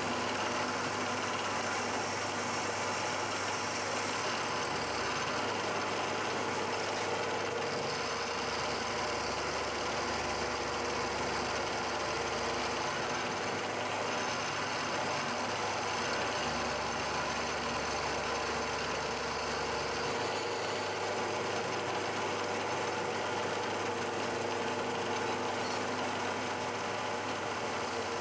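Milling machine spindle running as a multi-flute carbide end mill cuts into an aluminium block, a steady machining sound of the cutter chewing out a corner.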